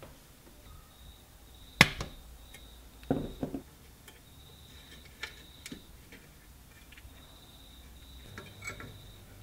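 Small hand-work noises on a metal amplifier chassis while wiring a switch. A sharp click comes about two seconds in and is the loudest sound. A short cluster of knocks follows about a second later, then a few light ticks.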